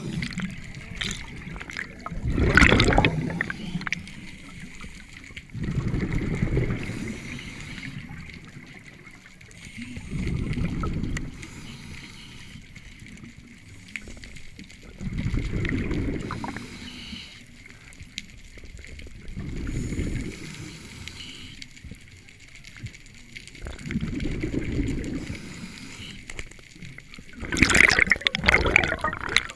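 Scuba diver breathing through a regulator underwater: a burst of exhaled bubbles about every four seconds, seven breaths in all, with a faint hiss of water between them.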